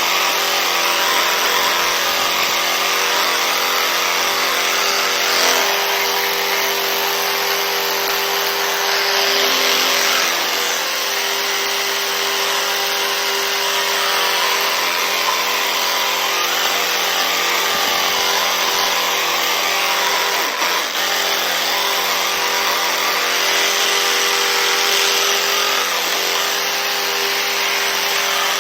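Small electric motor running steadily, a constant hum with a rushing of air over it.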